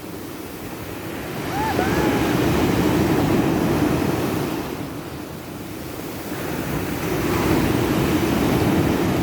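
Rough sea: heavy surf breaking and washing up the beach in two surges, swelling about a second and a half in and again in the second half, with wind buffeting the microphone.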